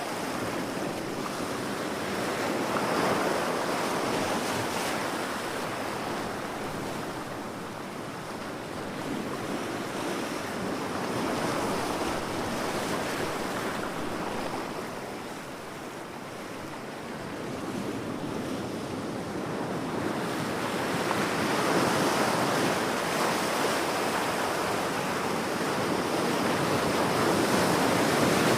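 Ocean surf on a beach: a continuous wash of breaking waves that swells and eases slowly as each set rolls in, louder about every eight to ten seconds.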